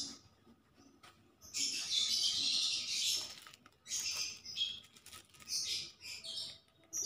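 Loose fiberfill stuffing being pushed and packed by hand into a fabric pillow cover: bursts of rustling and crunching. The longest burst starts about a second and a half in and lasts nearly two seconds, with shorter ones following.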